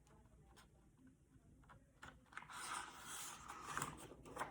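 Near silence, then from about halfway through, faint irregular paper rustling as a picture-book page is turned.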